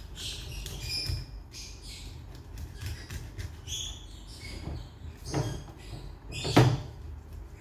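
A whole tuna being handled and cleaned on a plastic cutting board over a stainless-steel sink: short squeaks and scrapes throughout, with two louder knocks in the second half, the last the loudest.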